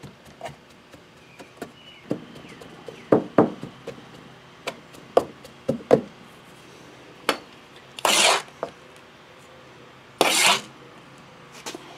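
Wooden hand rammer thumping molding sand down in a wooden flask: about a dozen irregular knocks. Then, twice near the end, a louder scraping rush about half a second long as a trowel scoops more sand from the bin.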